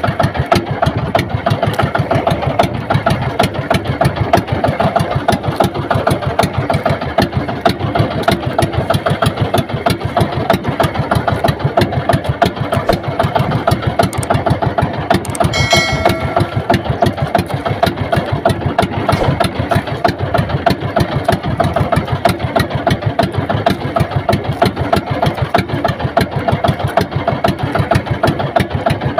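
Small boat engine running steadily, with a fast, even beat of firing strokes. A brief high tone sounds about sixteen seconds in.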